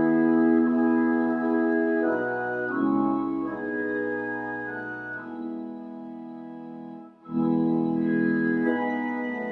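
Pipe organ playing slow, sustained chords of sacred music. The sound cuts out briefly about seven seconds in, then the next chord comes back.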